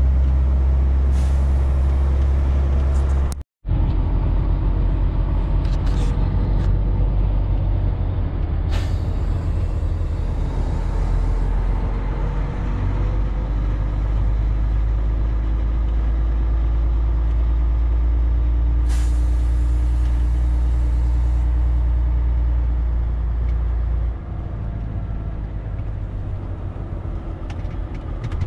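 Volvo FH12 truck's diesel engine and road noise while driving: a steady, deep rumble with a few short sharp clicks or hisses. The sound cuts out for a moment a few seconds in, and the deepest part of the rumble eases near the end.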